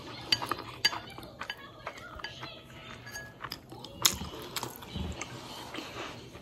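Close-up eating sounds of hand-pulled noodles: chewing and lip smacking, with a series of sharp clicks as the chopsticks knock against the porcelain bowl. The loudest click comes about four seconds in.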